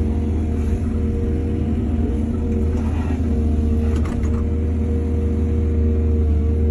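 Excavator's diesel engine running steadily under load, with a short knock about four seconds in.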